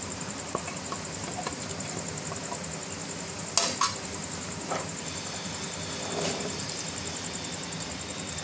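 Sliced onions frying in ghee in a non-stick pan with a faint steady sizzle, while a slotted spatula stirs them, clicking and knocking against the pan; two sharp knocks about three and a half seconds in are the loudest sounds.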